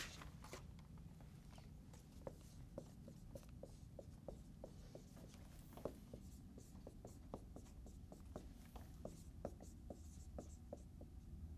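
Dry-erase marker writing on a whiteboard: faint, irregular squeaks and taps of the pen strokes, several a second, over a low room hum.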